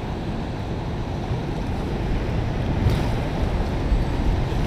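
Wind buffeting the microphone over moving river water, a steady unpitched rush heaviest in the low end.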